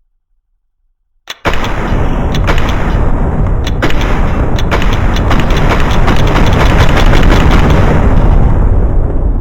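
Sudden, extremely loud, distorted noise with crackling pops, bursting in about a second in after silence and holding at full volume.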